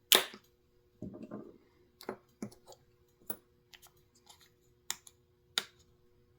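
Sharp clicks and taps of small tools and metal parts being handled on a bench while a chainsaw carburetor is taken apart: about half a dozen separate clicks, with a short scuffing rustle about a second in, over a faint steady hum.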